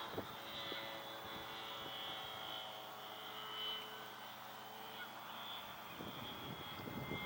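Radio-controlled aerobatic model airplane flying at a distance, its motor and propeller a steady high-pitched whine that wavers slightly in level.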